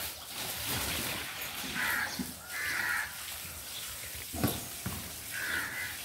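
A crow cawing three times. About four and a half seconds in, there is a sharp knock of firewood being handled.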